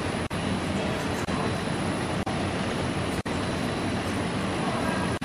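Three-side sticker labeling machine running: a steady mechanical noise from its conveyor and label heads, broken by short sharp dips about once a second.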